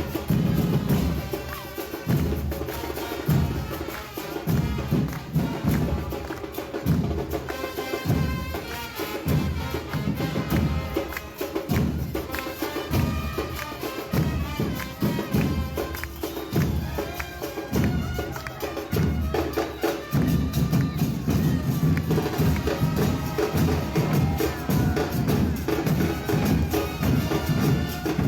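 Music with wind instruments over a steady low beat of about one beat a second; the low part becomes fuller and continuous about twenty seconds in.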